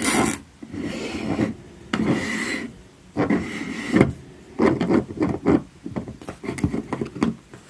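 3D-printed plastic robot chassis with TT gear motors being handled and shifted on a tabletop: a series of short rubbing and scraping sounds, with quicker clicks and knocks in the second half.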